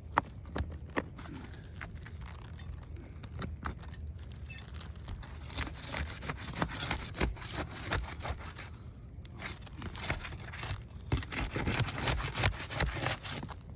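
Pry bar scraping and prying under brittle roof shingles, with irregular clicks and crackles as the shingles are lifted. The crackling is the sign of shingles so brittle they tear when lifted only slightly.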